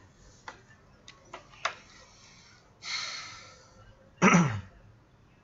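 A few light clicks and a breathy rush on an online-call microphone, then one short, loud cough about four seconds in.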